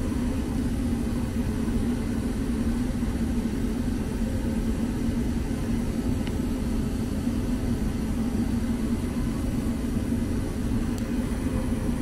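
90% gas furnace running steadily while it fires: a constant hum with a steady low tone over an even rushing noise.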